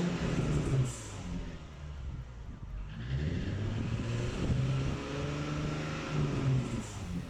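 Nismo Fairlady Z 380RS's 3.8-litre V6 revved through a newly fitted Amuse titanium exhaust with Torqen cats and Y-pipe, running with a deep note. It revs twice: the first rev is held and drops back about a second in. The second rises about three seconds in, is held, and falls back near the end.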